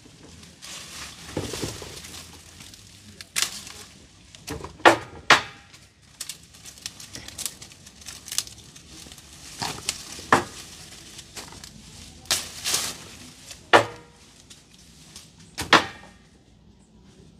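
Leaves rustling and twigs and branches snapping, with about ten sharp cracks at irregular intervals.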